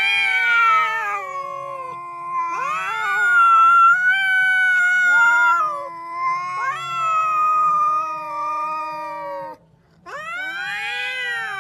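Cats in a face-to-face standoff yowling at each other: long, drawn-out yowls that waver up and down in pitch, the warning cry of a confrontation, with a brief pause near the end before the yowling starts again.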